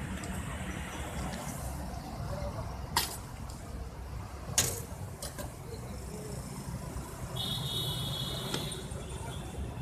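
Steady low rumble of street traffic, with two sharp metallic clanks about a second and a half apart as the steel scale bowl of biryani is lifted and tipped onto a paper plate. A short high-pitched tone sounds near the end.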